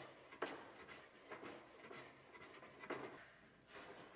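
Japanese wooden hand plane shaving a walnut tabletop to flatten it. Faint rasping strokes come about once a second, each starting sharply and fading out.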